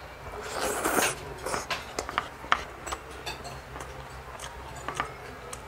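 Eating sounds: scattered light clicks and taps of utensils on a plate, with a brief louder burst of noise about a second in.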